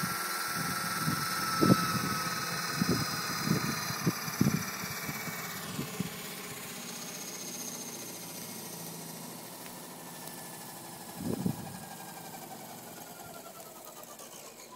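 Bell 206L scale RC helicopter winding down on the ground. The motor and rotor whine slowly falls in pitch and fades as the rotor spins down. Several low thumps come in the first few seconds and one more about eleven seconds in.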